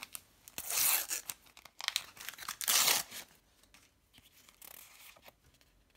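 A foil sticker booster packet being torn open: three loud ripping rasps about a second apart, followed by fainter crinkling as the stickers are pulled out.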